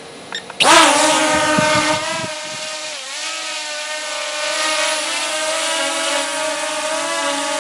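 Holy Stone HS460 quadcopter's four brushless motors and propellers spinning up suddenly about half a second in as it lifts off, then a steady high whine as it hovers. The pitch dips briefly about three seconds in, then holds.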